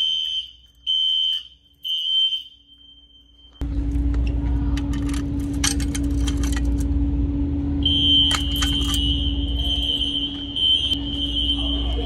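Fire alarm sounders sounding a high electronic tone in pulses of three, the temporal-three evacuation pattern. A few seconds in, a loud steady low hum and rushing noise come up suddenly under it, with scattered clicks and rattles.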